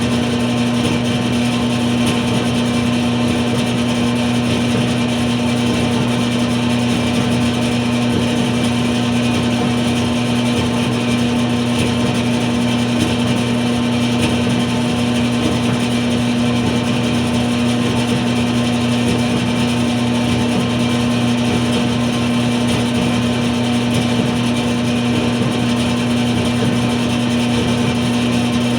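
A dryer running steadily, with a constant motor hum and an even airy hiss that does not change.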